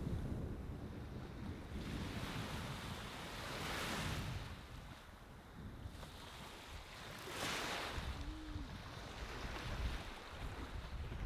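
Ocean waves washing up on a sand beach, swelling every three or four seconds, with wind rumbling on the microphone.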